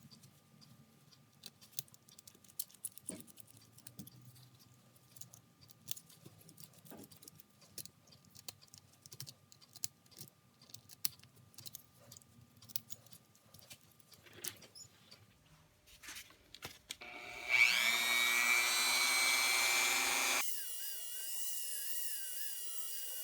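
Quiet, scattered clicks and taps of parts being handled. About 17 seconds in, a small high-speed rotary tool spins up with a rising whine and runs loudly and steadily. Near the end it gives way to a quieter, high, wavering whine.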